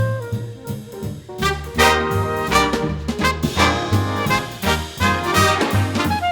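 Instrumental swing jazz music. A lone melody line over a steady bass gives way to the full band, louder and fuller, about a second and a half in.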